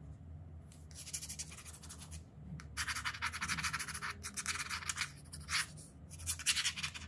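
Rapid scrubbing strokes against a hard surface, in four bursts of about a second each.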